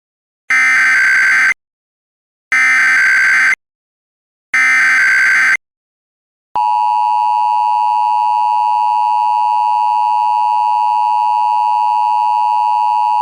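Emergency Alert System SAME header: three identical one-second bursts of data tones, about a second apart. About six and a half seconds in, the steady attention-signal tone begins and holds.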